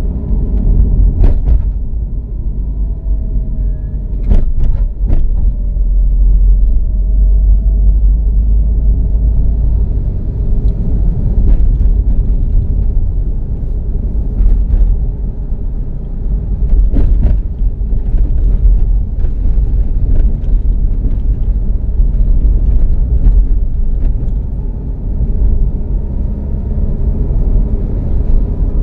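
Car driving on a patched asphalt road, heard from inside the cabin: a steady low rumble of tyres and engine, with scattered knocks and rattles as the car jolts over thick asphalt patches.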